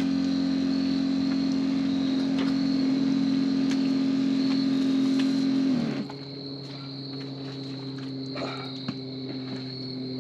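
Hot-water camp shower running, a steady hum over spraying water, shut off about six seconds in. Crickets chirp throughout.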